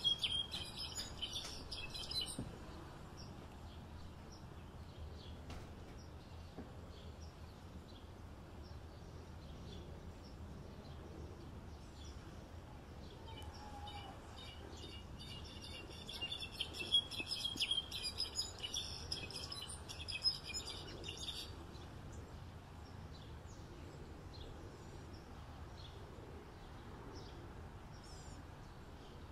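European goldfinch singing: rapid, twittering chirps in two stretches, a short one that cuts off about two seconds in and a longer one from about thirteen seconds that stops suddenly near twenty-one seconds, over a steady low background hum.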